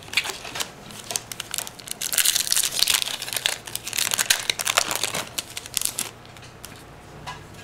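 Foil wrapper of a Pokémon trading card booster pack crinkling and being torn open, a dense crackling rustle that is loudest in the middle few seconds.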